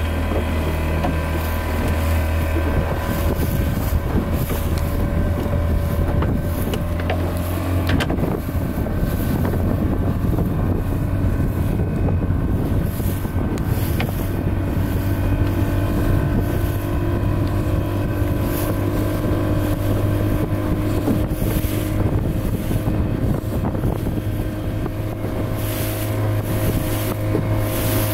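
A small fishing boat's outboard motor running steadily, with its note shifting slightly about eight seconds in, and wind buffeting the microphone.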